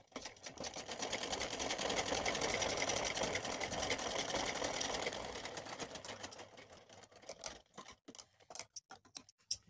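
Sewing machine stitching gota trim onto a fabric strip: a rapid, even run of needle strokes that builds up, holds for a few seconds and slows to a stop about six seconds in. A few scattered light clicks follow.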